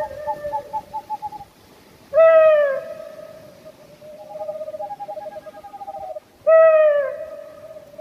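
Owl calling: a trailing run of soft repeated notes, then two loud calls about four seconds apart, each a short falling note followed by a quick run of softer repeated notes.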